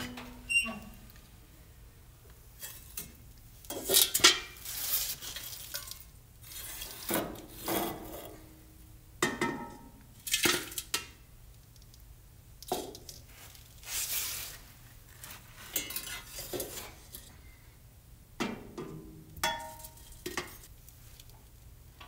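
Ash being scraped out of a wood stove's firebox with a small hand scoop, in irregular scrapes and metal clinks against the stove and an enamel pail, one every second or two.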